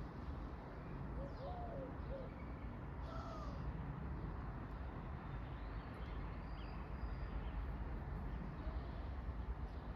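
Birds calling faintly, a few short arched calls in the first few seconds and scattered higher chirps after, over a steady low rumbling background noise.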